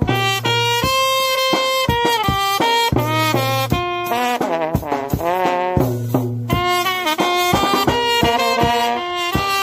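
Upbeat background music led by a brass melody of quick, separate notes, with a low bass note coming in about every three seconds.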